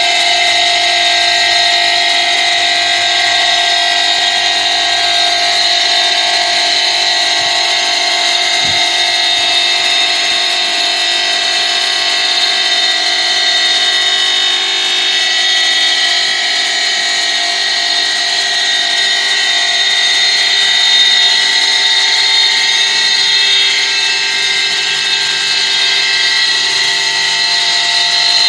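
CNC five-axis stone cutting bridge saw running, its saw blade cutting a circle into a stone slab. A loud, steady, high whine holds throughout.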